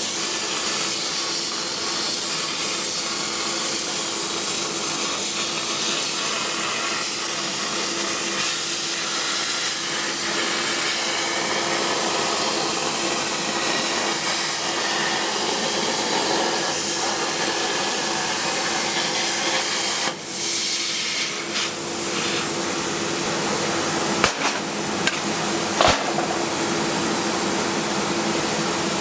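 A workshop machine running with a steady, loud hiss and a constant hum, with a few sharp knocks in the last few seconds.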